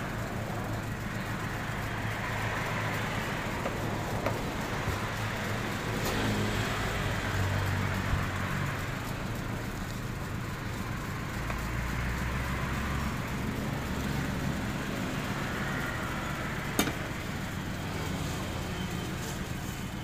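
Steady low rumble of road traffic, with a few sharp knocks of a meat cleaver on a wooden chopping block, the loudest near the end.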